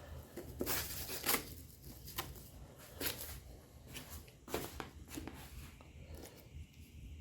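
Hand block sanding of hard 2K clear coat with 2000-grit wet/dry sandpaper: short, irregular rasping strokes, knocking down orange peel in the finish.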